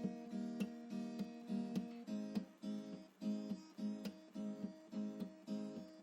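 Background music: acoustic guitar strumming a steady rhythm of chords.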